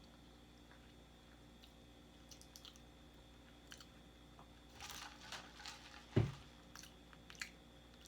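Close-miked chewing and mouth sounds: soft scattered clicks, then a denser bout of crunching about five seconds in. A brief, sharper sound with a falling pitch comes about six seconds in.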